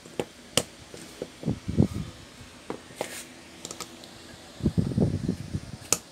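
Clicks and clatter of a small metal electric fan motor being handled and worked with pliers and a hand tool. Two busier bursts of knocking and scraping come about 1.5 s in and about 5 s in, with a sharp click near the end.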